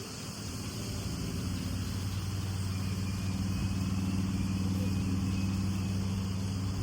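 An engine running at a steady low hum, growing louder over the first few seconds.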